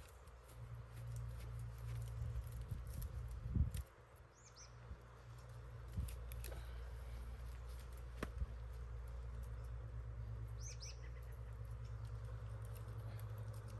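Small birds chirping briefly twice, over a steady low rumble, with a few scattered clicks and knocks.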